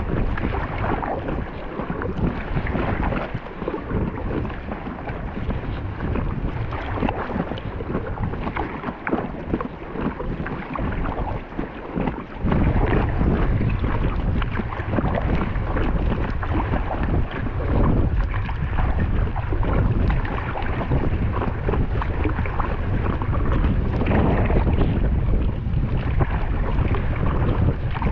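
Wind buffeting the microphone over water splashing against an Intex Challenger K1 inflatable kayak heading into the wind. The low wind rumble grows much stronger about halfway through and stays.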